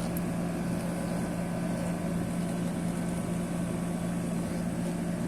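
Steady machinery hum with one constant low tone and a background rush, unchanging throughout.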